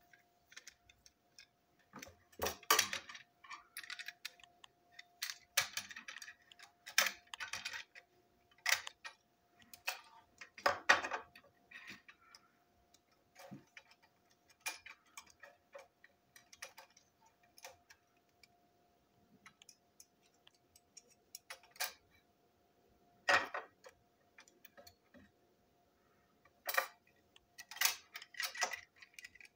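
Irregular small plastic clicks, taps and rattles as a toy railway coach is handled and screwed back together, with a few sharper knocks of the coach set down on the tabletop.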